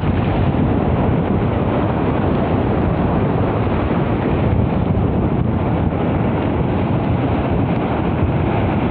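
Steady rushing of wind buffeting the microphone at the shore.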